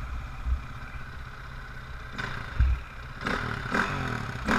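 Dirt bike engine ticking over at idle, a low steady rumble, with rougher, louder patches about halfway through and again near the end.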